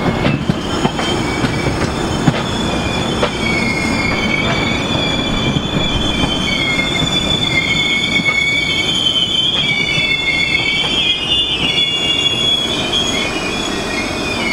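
Indian Railways LHB passenger coaches rolling past with a steady rumble and the clicks of wheels over rail joints. From about three seconds in, a loud, wavering high-pitched squeal of wheels grinding on the rails comes in as the train takes a curve, and it keeps going.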